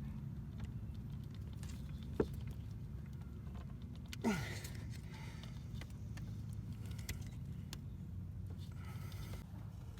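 Small handling noises as a rubber shift-cable bushing is worked into place: a sharp click about two seconds in and a short squeak that slides quickly down in pitch a little after four seconds, over a steady low hum.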